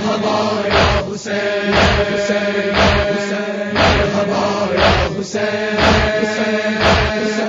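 A nauha chorus holding a steady hummed vocal drone, with sharp rhythmic matam (hand-on-chest) strikes about once a second.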